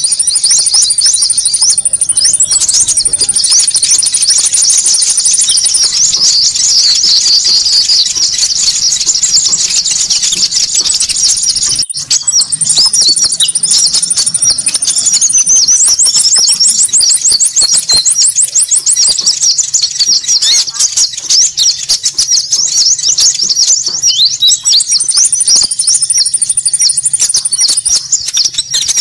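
Bird-trapping lure recording of the konin call: a dense, loud mass of small birds twittering and chattering together, high-pitched and nonstop, with a thin, buzzy trill running over the top in several stretches. A brief drop about twelve seconds in suggests a splice in the looped recording.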